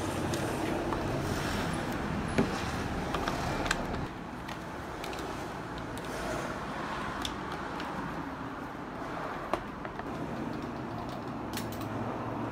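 Steady background rumble with a few sharp plastic clicks and knocks as a Makita lithium-ion battery and its hard tool case are handled. The two loudest clicks come about two seconds in and near the middle of the second half.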